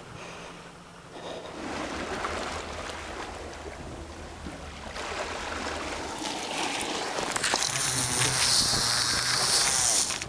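Seawater washing against shore rocks, mixed with wind, building and loudest near the end, with a low steady hum underneath.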